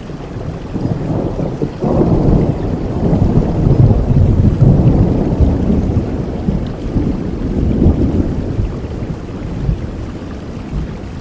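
Steady rain with a long roll of thunder. The thunder breaks in about two seconds in, rumbles loudest around the middle, then fades away near the end.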